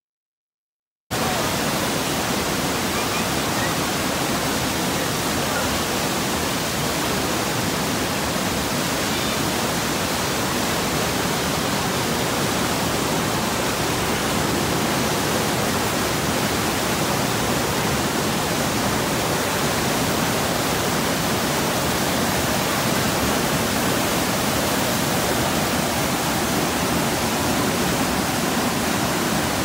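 Whitewater at a river's headwaters rushing over rocks in a steady, even noise that starts suddenly about a second in.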